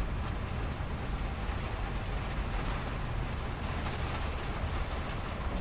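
Steady rain on a window over a constant low rumble of freeway traffic.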